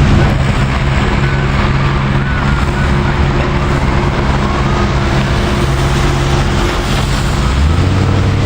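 Sports car engine running at steady low revs; a deeper engine note joins near the end.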